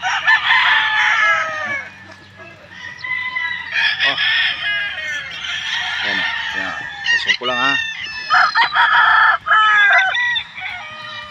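Several gamecocks crowing, one after another and often overlapping, the crows coming again and again.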